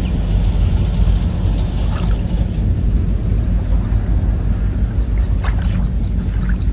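A steady low rumble throughout, over water swishing as a man wades and handles a fishing net in shallow muddy water, with a couple of brief splashes about five and a half seconds in.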